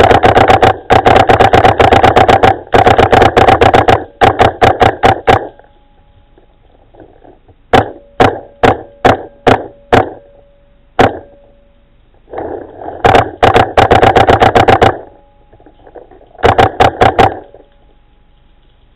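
Paintball marker firing: rapid bursts of shots for the first few seconds, then single shots about every half second, then more rapid bursts. A faint steady whine sounds between the bursts.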